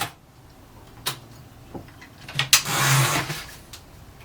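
Mechanism of a 1930 Erika 5 portable typewriter being worked by hand: a few separate clicks, then a short sliding rasp about two and a half seconds in.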